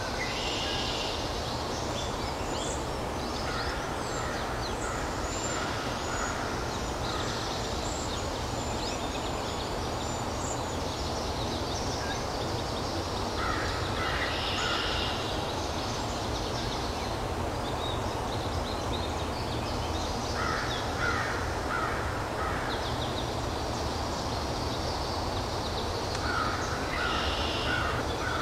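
Woodland birds calling in four bouts of quick repeated notes, harsh and crow-like, over a steady low background rumble.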